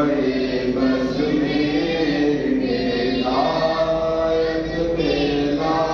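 A group of men chanting a devotional recitation together in unison, in long held notes that step from pitch to pitch.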